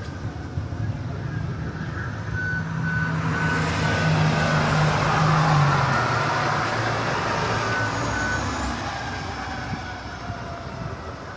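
A large truck's engine rumbles, swelling to a peak mid-way and then fading, while a reversing alarm beeps in a run of evenly spaced pulses and again briefly later.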